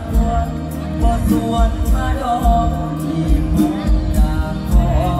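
Live Thai Isan band music with a male singer singing into a microphone over a regular drum beat and cymbals.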